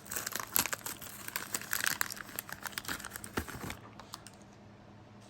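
Foil trading-card pack being peeled open by hand, with irregular crinkling and crackling of the wrapper that tapers off after about three and a half seconds.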